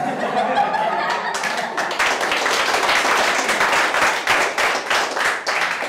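Audience clapping and laughing after a punchline, the applause growing denser about two seconds in.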